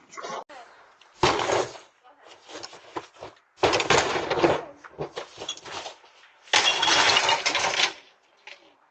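Three loud crashes of something being smashed and breaking, about every two and a half to three seconds, with fainter clattering between them.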